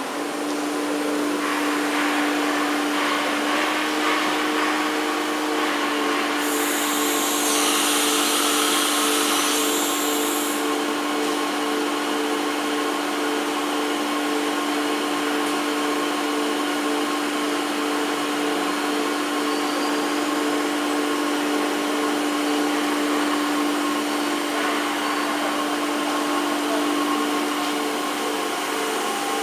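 JCUT-1330H CNC wood router running, its spindle giving a steady whine over constant machine noise. About six seconds in, a loud hiss joins for about four seconds.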